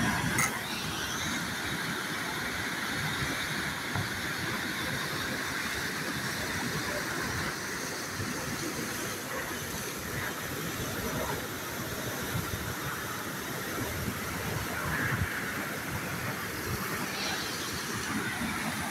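Steady rushing noise of a river running high.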